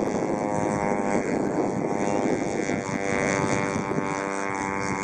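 Mintor twin-cylinder model engine and propeller of a radio-controlled Extra aerobatic plane in flight. The engine note wavers in pitch and settles to a steady tone about four seconds in.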